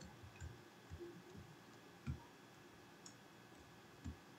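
A few faint, scattered clicks of a computer keyboard and mouse, about five spread over four seconds, against near silence.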